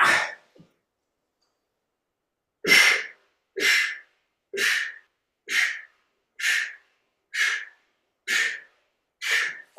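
A person breathing out hard in a steady rhythm during exercise: eight short, sharp exhalations a little under a second apart, starting about three seconds in.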